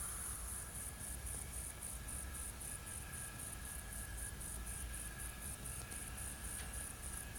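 Insects chirping: a steady high-pitched pulsing, about five or six pulses a second, over a faint low hum.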